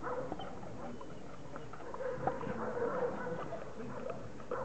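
Czechoslovakian wolfdog licking a treat out of a foil cup: wet licking and lip-smacking in quick, irregular clicks.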